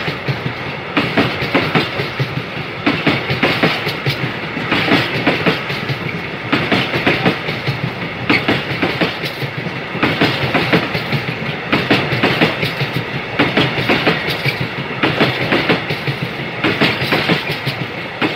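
A train of tank wagons rolling past, the wheels clicking over rail joints in repeated clusters of clicks over a steady rolling rumble.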